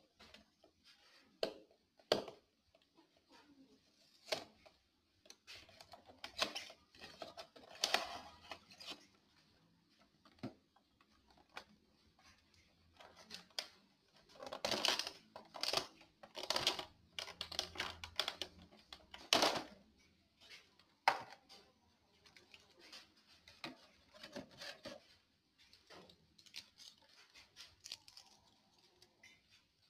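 Clear plastic packaging being handled and opened: scattered clicks, taps and crinkling rustles, busiest for a few seconds about halfway through.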